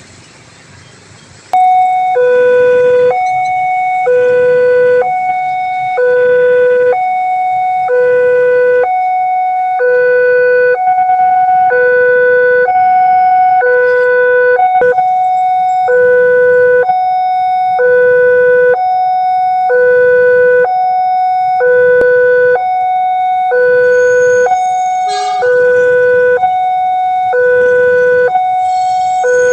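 Railway level-crossing warning alarm, an electronic two-tone siren that switches on suddenly about a second and a half in. It goes in a loud repeating high-low pattern about every 1.3 seconds, the signal that a train is coming and the crossing barrier is closing.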